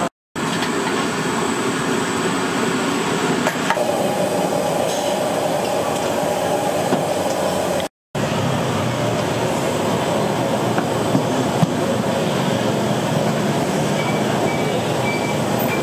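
Steady rushing background noise of a restaurant kitchen, with a few faint clicks. It cuts out briefly twice, once near the start and once about halfway through.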